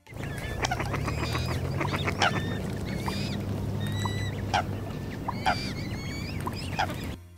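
Waterfowl calling: many short chirps and squeaky gliding notes with a few sharp clicks, over a steady low hum.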